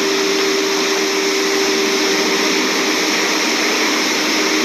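Bucher CityCat compact suction street sweeper at work, its brushes sweeping wet leaf litter. The suction fan and engine give a steady hum over a loud, even hiss.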